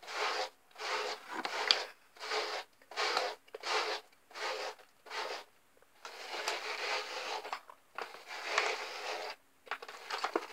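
Hairbrush strokes through long hair: a run of short rasping strokes about two a second, then a longer stretch of brushing from about six seconds in.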